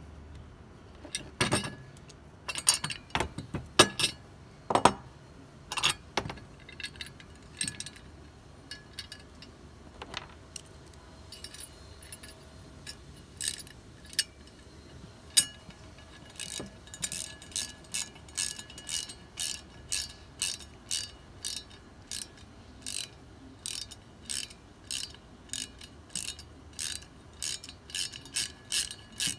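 Allen wrench turning a screw into a metal mounting bracket on the fan assembly's black tank. Scattered metallic clicks and knocks come first, then a steady run of clicks about twice a second over the second half.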